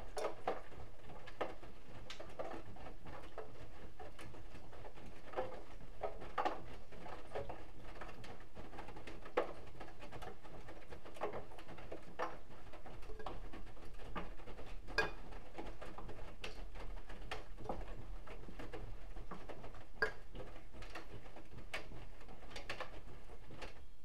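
Bosch Exclusiv Maxx Comfort WFR160A front-loading washing machine in its wash phase: the drum turns slowly, and laundry and water slosh and slap inside it with an irregular splash every second or so over a low motor hum. The hum grows louder for a while in the middle.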